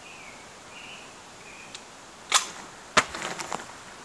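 Misfire of a 12-gauge shotgun: two sharp metallic clicks about two-thirds of a second apart, then a few lighter clicks, as the gun is fired on a very old shell that fails to go off, a dud round.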